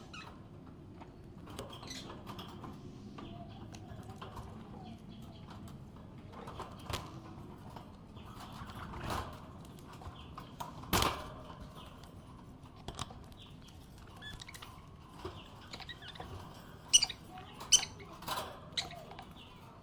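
Pet budgerigar chirping in short, scattered calls, with a quick run of four sharp chirps near the end and a single knock about halfway through.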